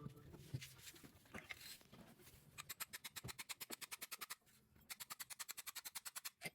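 Two runs of rapid, even clicking, about ten clicks a second, each lasting a second or two, with faint handling noises between.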